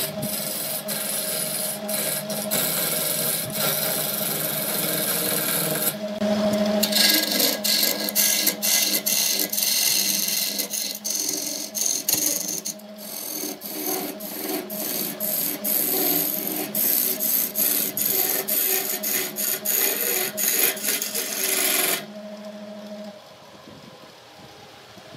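Wood lathe turning a segmented blank of glued wood scraps while a hand-held turning tool cuts into it: a loud, steady scraping hiss of the cut, broken by a couple of brief pauses. About three seconds before the end, the cutting stops suddenly, leaving only the quieter sound of the lathe running.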